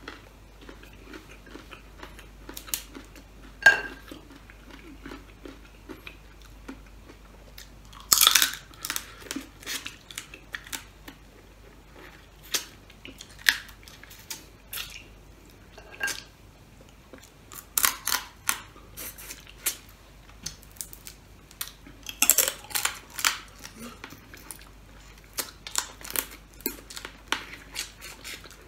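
Close-up eating of steamed crab: shells and legs bitten, cracked and crunched between the teeth, with chewing in between, in irregular bursts. A few clusters of louder cracking stand out, around a third of the way in, about two-thirds in and shortly after.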